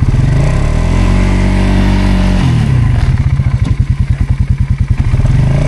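ATV engine revving up and holding a higher speed for about two seconds, then dropping back to a lumpy, pulsing idle.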